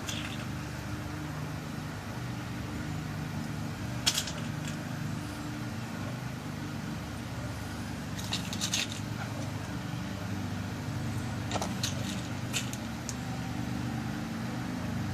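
Small sharp metal clicks as new pins are set into a lock cylinder's pin chambers during a rekey, one about four seconds in and small clusters around eight and twelve seconds in, over a steady low hum.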